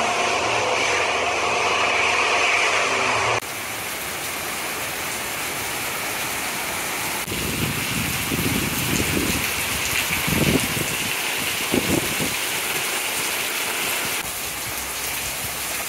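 Steady heavy rain from the outskirts of Hurricane Ian, falling and splashing. A few clips are cut together, so the sound changes suddenly a few times, and there are some stronger low surges about halfway through.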